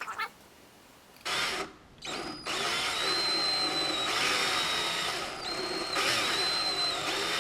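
Power drill driving a screw into a silicone-filled hole in a boat deck, so the sealant works into the screw's thread. Two short bursts, then a steady run of about five seconds with a high whine.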